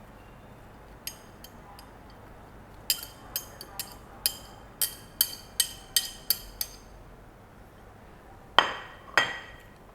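Light, ringing clinks of a utensil against a bowl while chopped red peppers and coriander are added. There are a few scattered taps, then a run of about two to three a second in the middle, and two louder knocks near the end.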